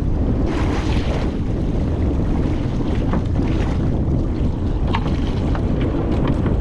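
Steady wind buffeting the microphone over water sloshing around a small boat at sea. There is a brief rush of noise about half a second in, and a few light clicks and taps later on.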